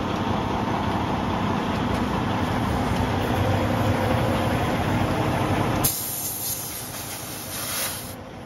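Semi-truck tractor's diesel engine idling steadily. About six seconds in, the engine sound falls away sharply and compressed air hisses for about two seconds as the air hose's chuck is pressed onto the tire valve stem.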